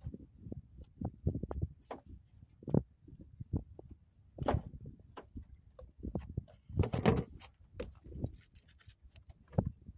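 Irregular knocks, clunks and rustles of gear being handled, with the loudest thumps about three, four and a half and seven seconds in.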